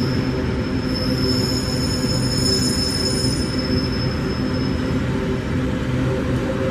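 Empty iron-ore gondola wagons of a long freight train rolling past, a steady rumble of steel wheels on rail. Over it, a high-pitched multi-tone wheel squeal that dies away about five seconds in.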